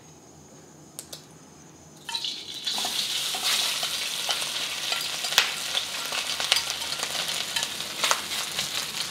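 Hot oil in a wok sizzles loudly as cold leftover rice hits it, starting about two seconds in after a quiet stretch with one light click. Occasional sharp clicks come as chopsticks work the rice in the pan.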